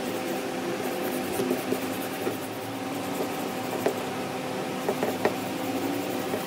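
A small electric motor humming steadily, with scattered light clicks and taps over it.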